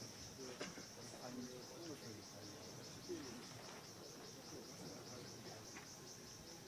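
Insects chirping steadily outdoors in a high, rapidly pulsing trill, with faint distant voices underneath.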